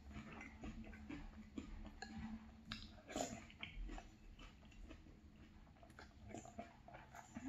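Quiet chewing of soggy cereal in milk, with a spoon clicking and scraping now and then against a glass bowl.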